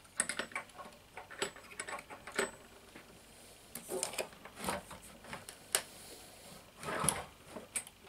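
Irregular clicks, rattles and short creaks as a mini bike's rear end is rocked over by hand on a wooden lean-mechanism rig, its twin shock units working against the lean. The longest, loudest rasp comes about seven seconds in.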